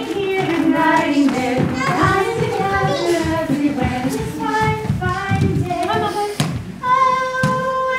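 Singing of a children's action song, with a long held note near the end.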